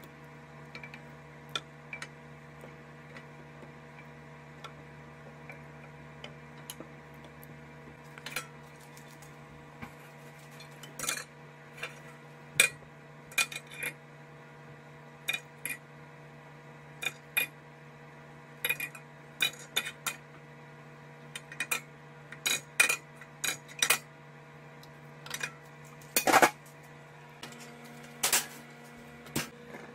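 Kitchen utensils clinking and scraping against a glass baking dish and a skillet while sauce is spooned over chicken wings: a string of short, irregular knocks and clinks, with two louder clanks near the end as the glass dish is moved toward the oven. A steady hum runs underneath.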